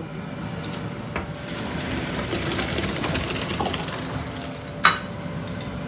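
Steady mechanical hum with a hiss in a kitchen, with a few light clicks and one sharp clack nearly five seconds in.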